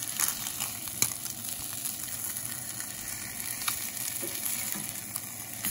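Trout fillets frying in a hot cast-iron skillet, a steady sizzle, with a few sharp clicks of a metal spatula against the pan as the fillets are flipped; the loudest click comes about a second in.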